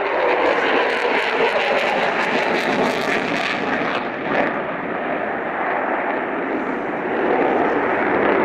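F-22 Raptor's twin Pratt & Whitney F119 turbofans in afterburner during a flying display: continuous loud jet noise, crackling through the first few seconds and duller from about four seconds in.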